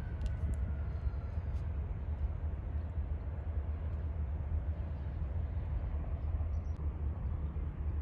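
Steady low rumble under an even hiss of outdoor noise, with a faint thin tone in the first second or so.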